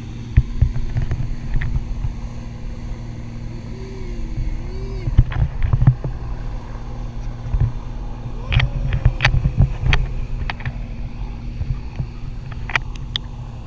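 Wind noise from a pole-mounted action camera carried aloft under a parasail: a steady low hum, broken by scattered knocks and clicks from the camera pole being handled, busiest around the middle and toward the end.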